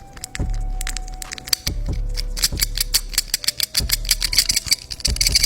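Fidget cube's plastic buttons and switches clicking rapidly, many small sharp clicks in quick succession that grow denser and brighter about halfway through.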